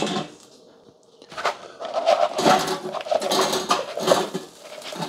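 Crinkle-cut French fries poured from a plastic bowl, clattering onto the air fryer basket of an Instant indoor grill. A few clicks of the basket being handled come first, and the pile of fries rattles down from about one and a half seconds in until near the end.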